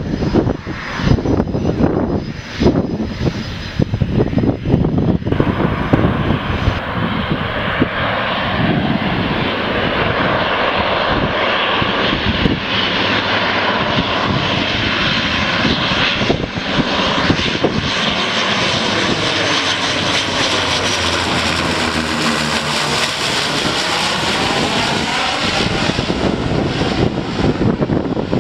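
Gusty wind on the microphone for the first few seconds. Then comes the steady propeller-engine drone of a twin-engine Canadair amphibious water bomber flying low overhead, its tone swelling and sweeping up and down as it passes close by.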